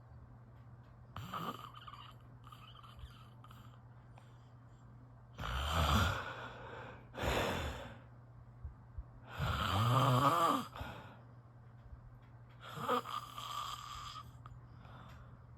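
A person snoring: a series of snores a few seconds apart, loudest about six and ten seconds in, the later one with a vibrating pitched flutter.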